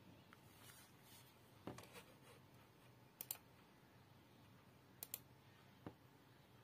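A few faint, sharp clicks, several in quick pairs: a computer mouse clicking to close windows, with small knocks from a phone being handled.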